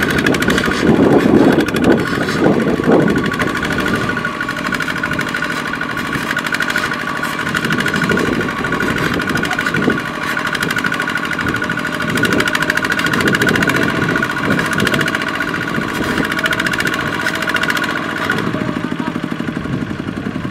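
Single-cylinder diesel engine of a two-wheel walking tractor running steadily under load as it pulls a trailer of rice sacks through deep mud, with a fast, even beat.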